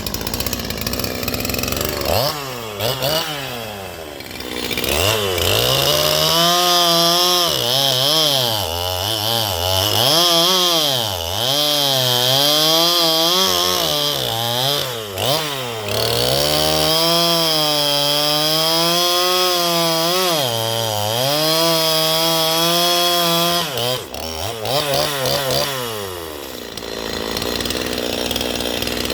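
Small two-stroke chainsaw revving up and down repeatedly, then held at high revs for several seconds before dropping back to idle, as it cuts a stub off a log with a chain gone very dull from hitting a screw.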